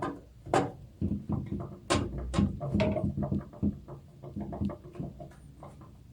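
Irregular knocks, clicks and short ringing clanks of a hard drive being pushed and fitted into the bay of a sheet-metal PC case.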